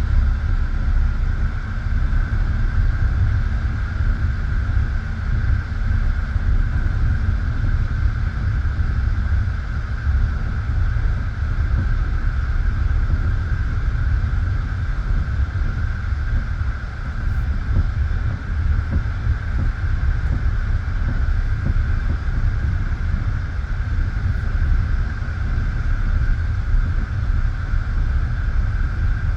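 Passenger train running at speed, heard from inside a carriage: a steady rumble of wheels on rails with a steady higher hum over it.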